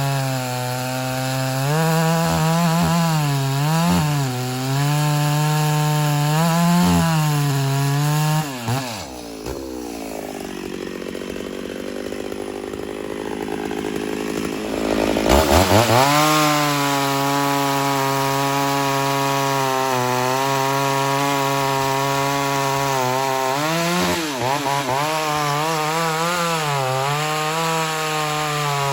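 Ported Homelite Super XL-925 82cc two-stroke chainsaw cutting red oak under load, its engine speed wavering as the bar works in the cut. About nine seconds in it drops to idle; some six seconds later it is revved sharply back up and goes back into the cut.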